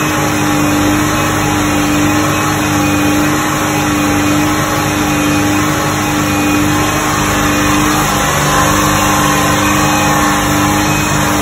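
Dodge car engine running steadily at raised revs with a constant hum. It is held at about 3,000 rpm while BG engine cleaner, in place of oil, circulates through the engine.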